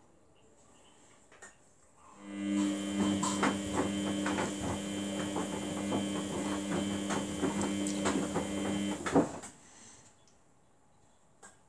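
Samsung WF80F5E0W4W front-loading washing machine tumbling a wash load: after a pause, the drum motor starts with a steady hum while the wet laundry and water slosh and click in the drum for about seven seconds. Then it stops and the drum rests again, the usual stop-start turning of a wash phase.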